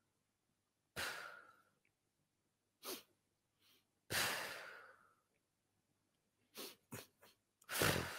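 A person's breath sounds: a series of sudden, sharp exhalations or sighs, each dying away over up to a second, with silence between. Three short ones come in quick succession late on, and the loudest comes near the end.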